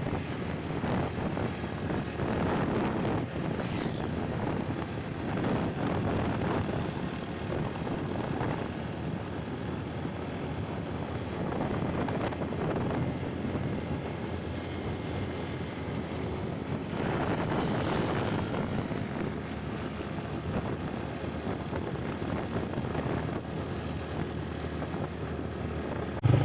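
Steady rushing of wind buffeting the microphone over the noise of a vehicle on the move, swelling and easing every few seconds.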